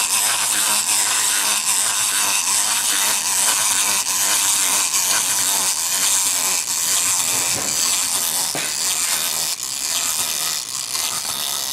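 The walking mechanisms of two toy chickens whirring steadily: a continuous buzzing whir with fast, even ticking.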